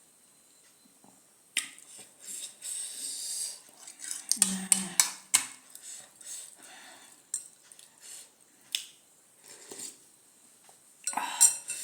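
Cutlery clicking and scraping against dishes during eating, with sharp clicks bunched about four to five seconds in and again near the end, and a stretch of high hissy noise about two seconds in.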